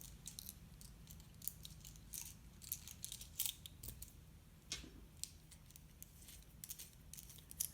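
Small metal screwdriver bits clicking and rattling faintly as they are handled and slotted back into a multi-bit screwdriver, a scatter of short, light clicks.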